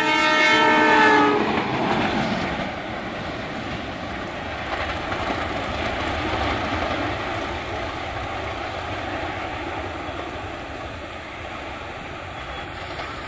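A YDM4 metre-gauge diesel locomotive sounds its horn, one steady blast that ends about a second and a half in. Its diesel engine and its wheels running on the rails follow as it passes and pulls away, the sound slowly fading.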